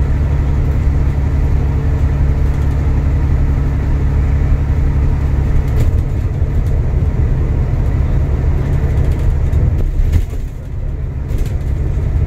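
Cabin noise inside a moving ADL Enviro400 MMC E40D double-decker bus: a steady low rumble of diesel engine and road noise. The rumble eases briefly about ten seconds in, then picks up again.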